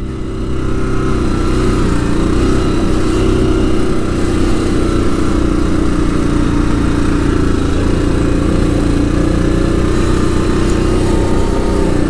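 Yamaha Grizzly ATV engine running steadily as the quad rides along a dirt trail.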